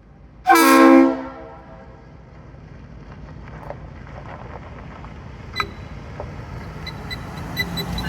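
A short blast of a train's air horn, a chord of several tones, about half a second in. It is followed by a low, steady rumble that slowly grows louder.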